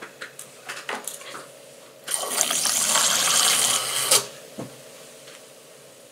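Liquid poured into a drinking glass for about two seconds, as a steady splashing stream that stops abruptly. A few light taps come before it.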